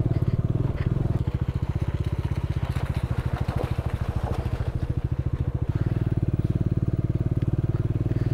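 Bajaj Dominar 400's single-cylinder engine running at low revs while riding slowly over a rocky off-road track, with tyres crunching on loose stones. For a few seconds in the middle the engine note drops to slow, separate beats, then it picks up steadily again near the end.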